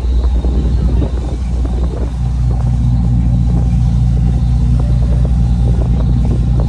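Steady low drone of a tour boat's engine heard on board, its note shifting slightly about two seconds in.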